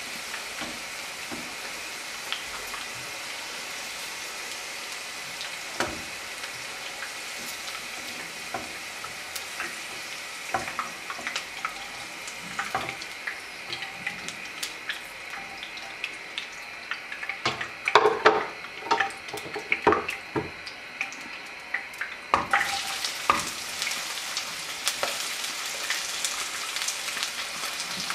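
Hot oil sizzling and crackling in a non-stick karahi after deep-frying okra, with a slotted spoon scooping through it. Several sharp clicks and knocks come about two-thirds through, and the sizzle grows brighter in the last few seconds.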